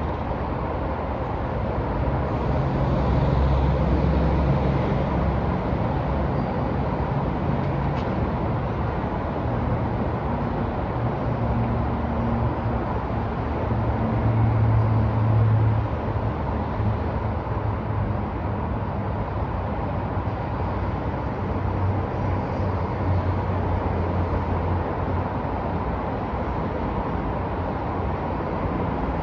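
Downtown street traffic: a steady wash of passing vehicles, with heavier engine rumbles swelling up about four seconds in and again around the middle.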